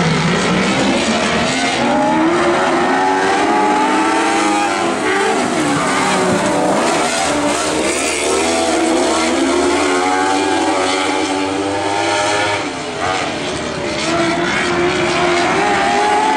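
Several Lightning Sprint race cars' 1000cc motorcycle engines at racing speed, the engine note climbing and dropping again and again as the drivers accelerate and lift through the laps.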